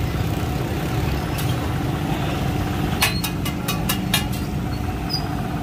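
Steady low rumble of street traffic and engines, with a quick run of sharp clinks a little past halfway.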